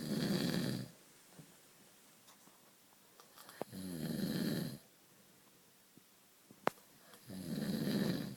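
Snoring: three loud, rasping snores on the in-breath, each lasting just over a second and coming about every three and a half seconds. A single sharp click falls between the second and third snore.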